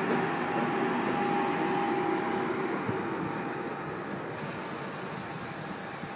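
A Croatian Railways series 6111 "Mađar" electric multiple unit rolling slowly past as it arrives at the station. Its running noise fades steadily, with a thin steady whine over the first two and a half seconds.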